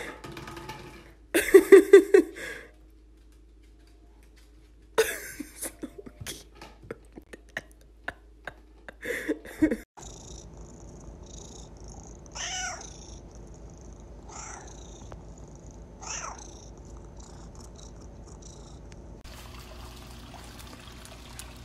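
A domestic cat meowing softly three times, each call falling in pitch. Before that, a short loud run of voice-like pulses is heard, then scattered knocks and clicks of a small container being pushed about on a wooden floor.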